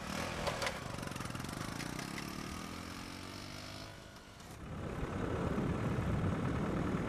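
Motorcycle engine pulling away, its pitch rising and falling as it gathers speed. About four and a half seconds in, it gives way to a louder, rougher engine rumble of an off-road vehicle driving along.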